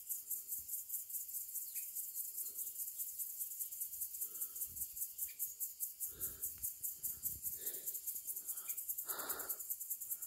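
Crickets chirping in a rapid, even high-pitched pulse, with a few dull low thuds and rustles partway through.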